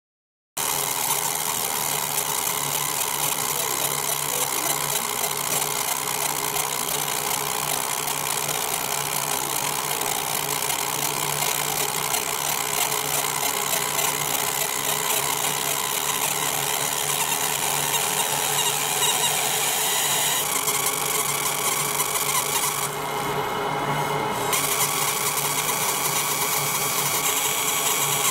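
Fiber laser marking machine deep-engraving a relief into a metal block: a steady buzzing hiss with a low hum beneath, starting abruptly about half a second in.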